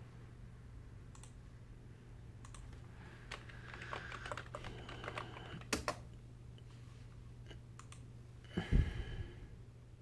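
Computer keyboard typing and mouse clicking: scattered clicks, with a short run of keystrokes in the middle, over a low steady hum. A dull thump comes near the end.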